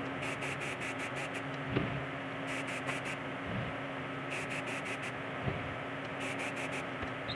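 Aerosol spray-paint can sprayed in four short bursts, each under about a second, over a steady hum. A light knock comes about two seconds in.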